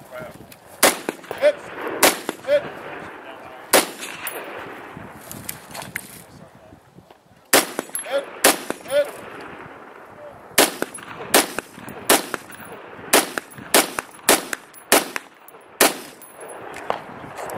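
Semi-automatic AR-style rifle fired from prone: about fifteen sharp single shots at an uneven pace, a few in the first four seconds, then a pause of several seconds, then a quicker string. Faint short pings follow a few of the shots.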